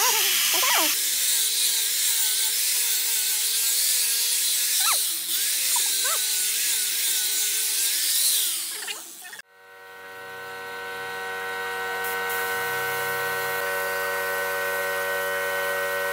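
Angle grinder with a sanding disc running against pine slats, a dense hiss over a motor whine that wavers in pitch as pressure on the wood changes; it cuts off suddenly about nine seconds in. A steady hum of several held tones then fades in and continues.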